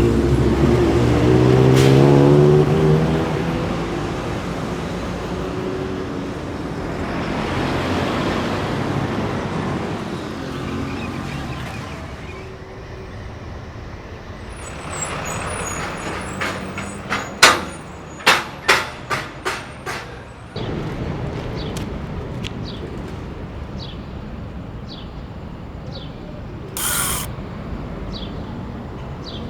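Street traffic: a heavy vehicle's engine rising in pitch as it pulls away, then steady traffic noise. A quick run of sharp clicks comes past the middle, and a short hiss comes near the end.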